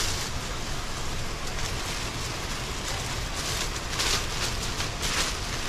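Steady rushing hiss of a waterfall's falling water, swelling briefly about four seconds in.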